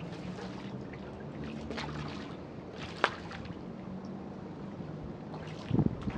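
Wind on the microphone over open water at the shoreline, a steady rushing noise with a faint low hum. A single sharp click comes about three seconds in, and a few loud low bumps near the end.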